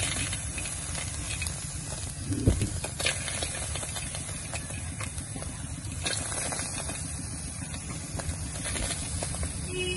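Wet insects sizzling in a hot aluminium wok: a steady hiss and sizzle, with a few small knocks and pops.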